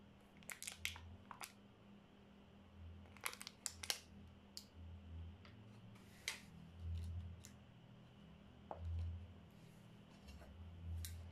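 Clear plastic blister packaging crinkling and clicking as it is handled, with small eraser pieces set down on a plastic cutting board; the clicks come in short clusters near the start, about three seconds in, and once more near the end. Under them a low hum swells and fades every couple of seconds.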